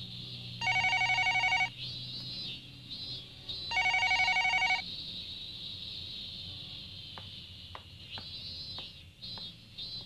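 A public payphone ringing twice with a warbling electronic ring, each ring about a second long and about three seconds apart, then it stops.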